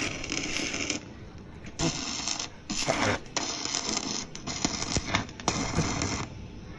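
Stick-welding arc from a 250 A MOSFET inverter welder burning a 4 mm electrode, crackling and hissing in about six short runs with brief breaks between as the arc is struck and broken again.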